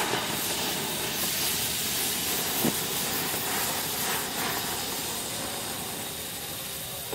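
Small anar (flower-pot fountain firework) hissing steadily as it sprays sparks, slowly easing off, with one small crack about two and a half seconds in.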